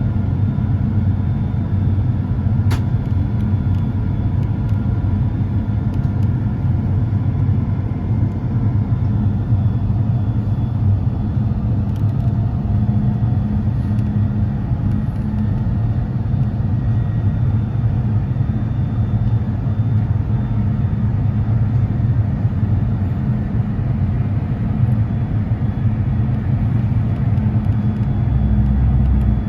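Steady low rumble inside the cabin of an Airbus A350-900 airliner in flight: engine and airflow noise with a faint hum, and a faint click about three seconds in.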